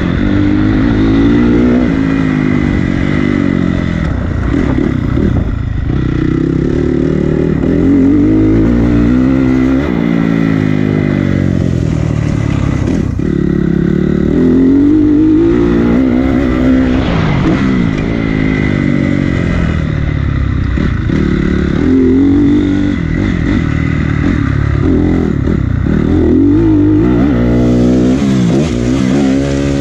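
Honda CRF250 four-stroke single-cylinder dirt bike engine under hard riding, its pitch rising and falling over and over as the rider accelerates, shifts and backs off for corners.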